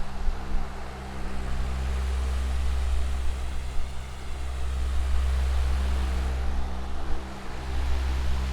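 Electric fan with metal blades running steadily: a low motor hum under a constant rush of air, swelling slightly now and then.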